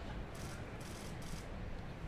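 Outdoor background noise on a training pitch: a low rumble with three short rustles in the first second and a half.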